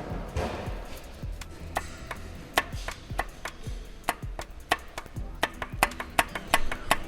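Background music with a run of sharp clicks or taps, irregular, a few a second, starting about two seconds in.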